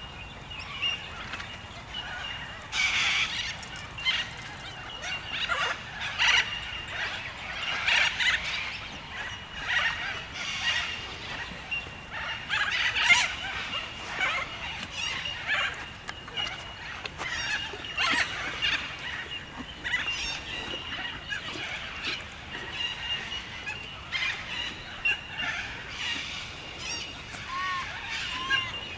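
Horse eating chaff and grass off the ground, with irregular crunching bites every second or two, over a faint steady high-pitched whine.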